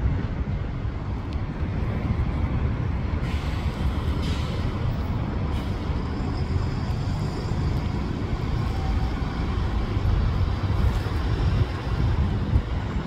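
City transit buses driving off and turning, their engines giving a steady low rumble over street traffic.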